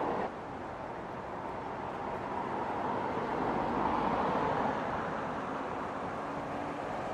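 Steady rumble of city traffic mixed with a JR Chuo Line local commuter train running toward the camera along the tracks, still at a distance.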